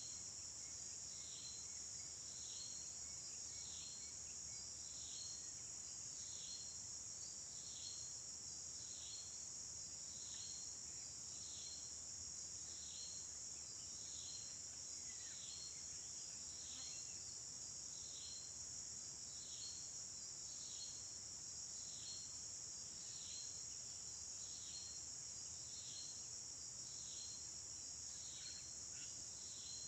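Steady high drone of crickets or other insects, with a short, high, falling chirp repeating about once a second over it.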